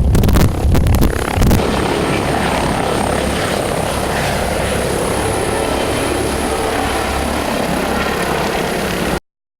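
Airbus H145 twin-turbine helicopter running: rough buffeting rumble for about the first second and a half, then an even drone of rotor and engine with a faint high steady whine. The sound cuts off abruptly near the end.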